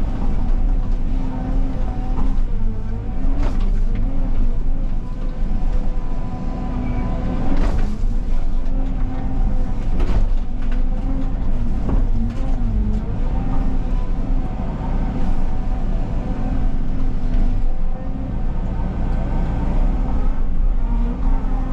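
Excavator's diesel engine running steadily under load, its pitch wavering as the hydraulics work. A few sharp cracks come through as small trees snap and are knocked down.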